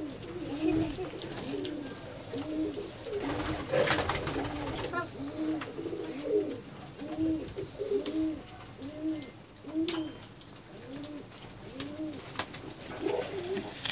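Domestic pigeons cooing in a steady run, one or two coos a second, each rising and falling in pitch, with a couple of knocks about 4 and 10 seconds in.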